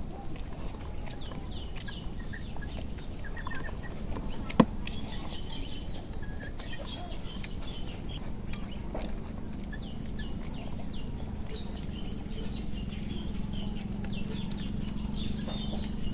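Birds chirping repeatedly in short high calls, over a steady high-pitched tone, with one sharp click about four and a half seconds in.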